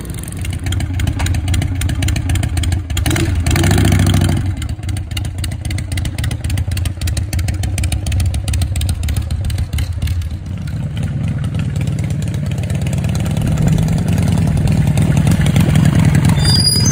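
Chopper motorcycle engine running, with a burst of revs about three seconds in, and louder again near the end.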